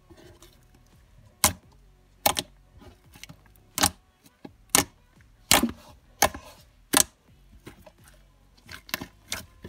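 Slime with foam chunks and beads being squeezed and pressed in the hands, giving a series of sharp clicking pops at irregular intervals, about one a second.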